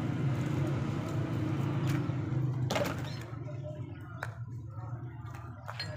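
A steady low hum that cuts off suddenly about two and a half seconds in with a sharp wooden knock, as the split firewood pieces are set down. After it come a few faint knocks.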